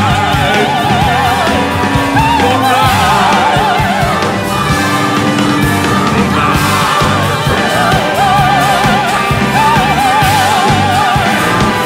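Band music with a steady beat under a singer holding long notes with a wide, operatic vibrato, four held phrases in all.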